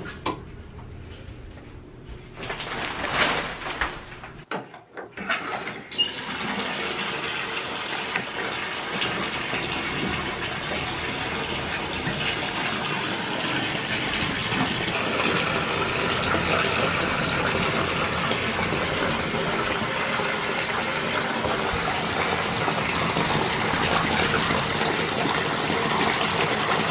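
A light switch clicks, then after a few handling knocks a bathtub faucet starts running, about five seconds in, with water pouring steadily into a filling tub.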